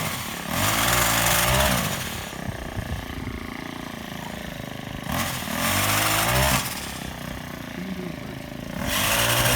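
Ryobi four-stroke power head driving a 12-inch chainsaw attachment, revving up three times for a second or so each and falling back to idle in between.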